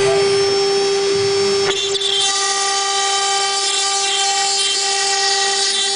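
CNC router spindle running with a steady high whine; a little under two seconds in, the bit starts cutting 4 mm Bond aluminium composite panel, adding a loud hiss of cutting noise over the whine.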